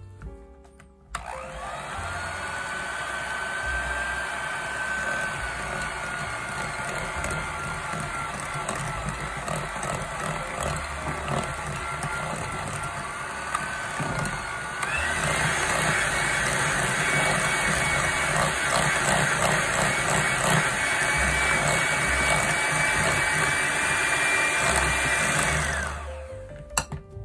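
Electric hand mixer running, its beaters whipping egg-yolk butter cream as dissolved instant coffee is mixed in. The motor whine starts about a second in, steps up to a higher speed about halfway through, and cuts off near the end.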